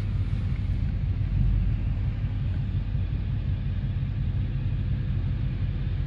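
Steady low rumble of a 1977 Chevrolet Caprice moving slowly, engine and road noise heard from inside the cabin.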